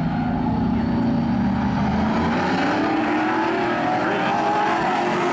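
A pack of pro stock race cars' V8 engines running hard at speed. Their engine notes rise as the cars accelerate, through the second half.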